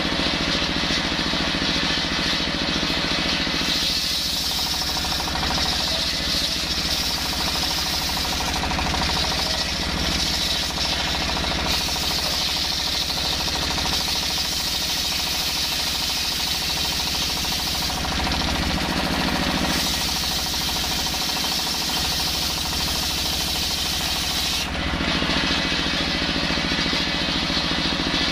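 Stationary single-cylinder diesel engine running steadily, driving a belt-driven table circular saw. About four seconds in, the blade starts ripping lengthwise through a hard coconut-wood log, adding a harsh high hiss over the engine that lasts until a few seconds before the end.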